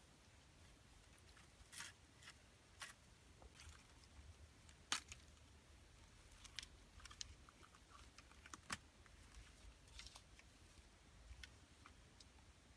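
Faint, scattered crackles and small snaps of sticks and vine lashing being handled as a pole frame is tied together. The sharpest snap comes about five seconds in and another near nine seconds.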